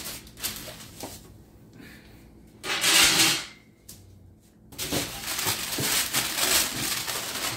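Packing paper and plastic wrapping rustling and crinkling as hands handle a wrapped tray inside a cardboard box. A short, louder rustle comes about three seconds in, and steady rustling runs from about five seconds in.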